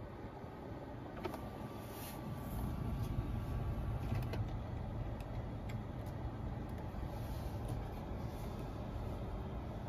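A few faint clicks of buttons being pressed on the car's centre-console switch bar, over a steady low rumble in the cabin that swells slightly after a couple of seconds.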